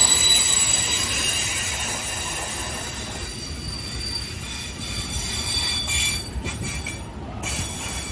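Freight train of rail tank wagons rolling past, a steady low rumble of wheels on rail with high-pitched wheel squeal that is strongest at the start and fades after a few seconds.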